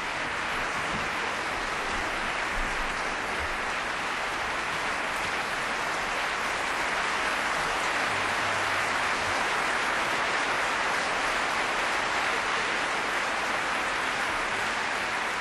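Audience applauding steadily, a dense, even clapping from a large crowd.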